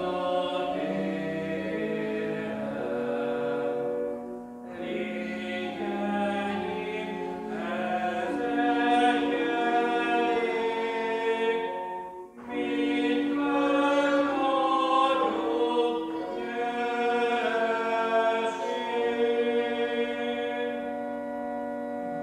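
Hymn singing in Hungarian church style: voices on long held notes in phrases, with short breaths between them about four and twelve seconds in. This is the last verse of the hymn, and its final chord dies away at the end.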